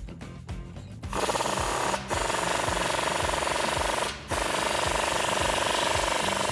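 Cordless impact wrench with a 15 mm socket on an extension, hammering as it tightens an exhaust band clamp. It starts about a second in and runs in three long bursts, with two brief pauses. Faint background music underneath.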